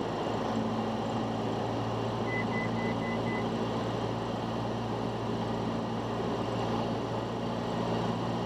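A Cessna 172's piston engine and propeller running steadily, heard inside the cabin. About two seconds in, a quick run of five short high beeps sounds over it.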